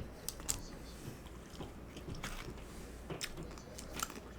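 A person eating close to the microphone, mukbang-style: biting and chewing food, with sharp wet mouth clicks and smacks, about six of them standing out.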